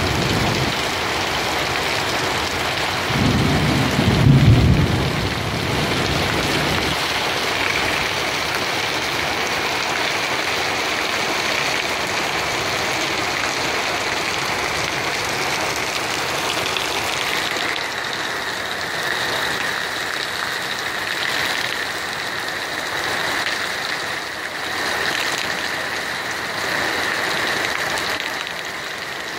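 Heavy rain pouring down and splashing on pavement in a steady hiss, with a brief low rumble about four seconds in.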